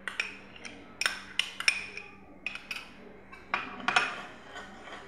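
Metal spoon clinking against glass bowls, a string of sharp, uneven clinks: mustard paste being scraped out of a small glass dish and the salad dressing being stirred in a large glass mixing bowl.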